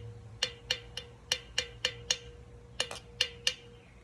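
Sharp point of a pencil tapping on the top of a half-full Red Bull can, about eleven light taps in quick runs and pairs, the can giving a faint steady ring under them.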